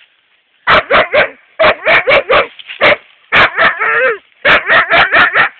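Young Siberian husky barking in quick runs of sharp barks, with one longer wavering yowl about four seconds in.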